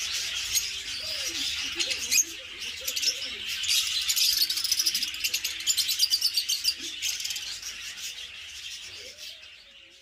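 A cage of lovebirds chattering, with many rapid high-pitched chirps overlapping, fading out near the end.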